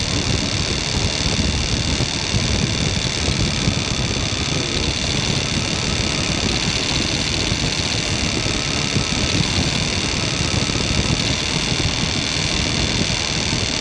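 1999 Ford Explorer's 4.0-litre V6 idling steadily, running with a misfire code while its cylinders are checked one at a time by pulling the spark plug wires.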